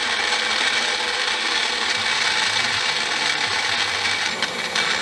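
Magic Bullet blender motor running at full speed, blending a frappe of espresso, milk and vanilla syrup; a loud, steady whir with a rattling edge.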